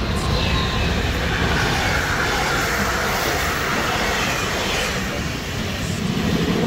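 Electric locomotive and its passenger coaches passing at speed close by: a loud, steady rush of wheels on rail. In the first couple of seconds a whine falls in pitch as the locomotive goes by.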